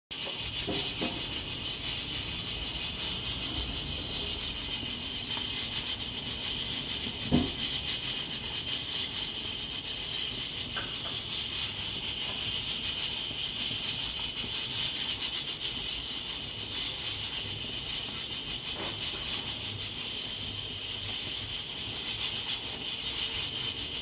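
Nigro external-lid pressure cooker hissing steadily as steam escapes through its valve, the sign that it has come up to pressure. One sharp pop about seven seconds in.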